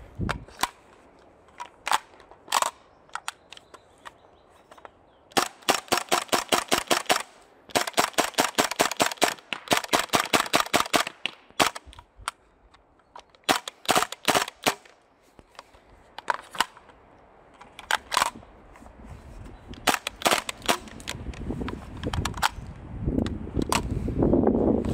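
Airsoft guns firing: sharp single shots, then long rapid full-auto strings in the middle, then more single shots and short strings. A low rushing noise swells near the end.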